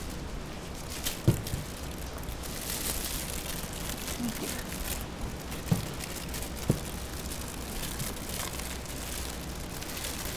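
Steady rain hiss with the crinkle of a plastic food bag being handled, and a few sharp knocks of things set down on a table: one about a second in and two close together past the middle.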